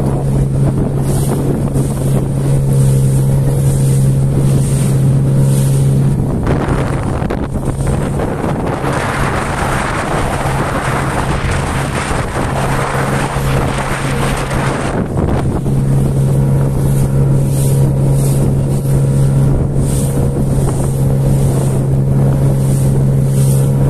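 Outboard motor pushing an inflatable boat across choppy water, a steady low drone. For several seconds in the middle a rush of wind and water noise covers the engine.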